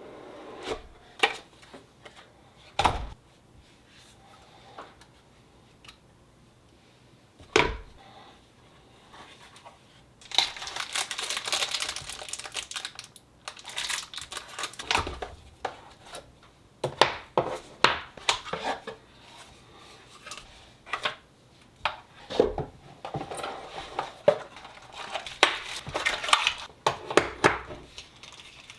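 Packaging being handled: plastic and paper crinkling and tearing in several stretches, with a few sharp knocks of hard objects set down.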